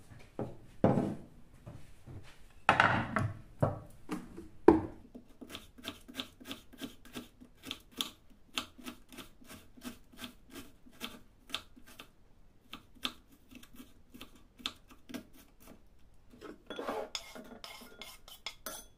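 Kitchen knife chopping garlic on a wooden cutting board, a long even run of quick chops at about three a second. Before it come a few louder knocks and rubs of kitchenware set down on the counter, and near the end the chopped garlic is scraped off the board into a glass bowl.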